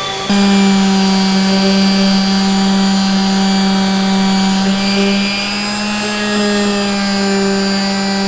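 Makita quarter-sheet orbital finishing sander running steadily while it is pushed across the face of a wooden cutting board, a strong steady hum with a thin whine above it. It cuts in suddenly just after the start, replacing a CNC router's spindle whine.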